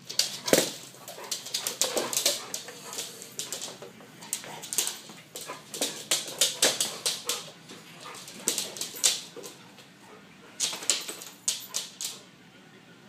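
A Bernese mountain dog puppy and a yellow Labrador playing: claws clicking and scrabbling on a hardwood floor in quick bursts, with some dog vocalising, going quiet near the end.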